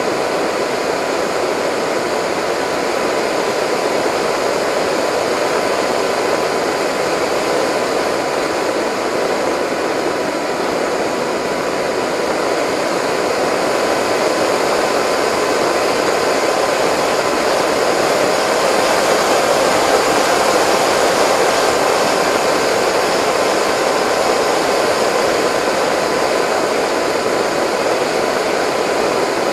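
Onboard sound of a Delta Speed XS model delta wing in flight: steady rushing air over the camera with the motor and propeller holding a thin, even whine. It gets a little louder partway through.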